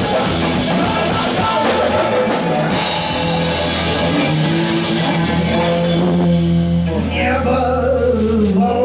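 Live rock trio of electric bass, drum kit and electric guitar playing. About three seconds in the playing thins to held notes, the drums drop out a little later, and near the end the notes slide downward in pitch.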